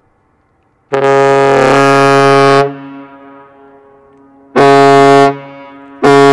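Lake freighter American Spirit's ship's horn sounding the captain's salute: one long blast, then two short blasts, each trailing off in an echo.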